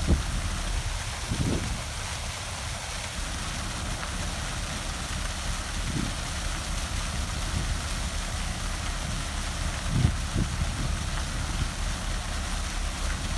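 Water draining from a patrol ship's anchor hawse hole, falling steadily down the bow and splashing into the harbour water, over a low steady rumble with a few brief low bumps.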